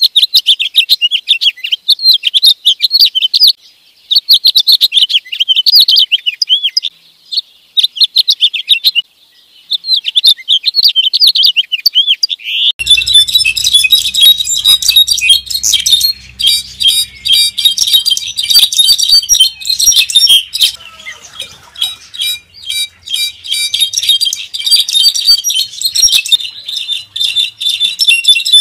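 A male house finch sings bouts of quick warbling phrases separated by short pauses. About 13 seconds in, a different recording takes over with a faint low hum, and a brown-backed solitaire (clarín jilguero) sings a dense, continuous run of rapid ringing notes.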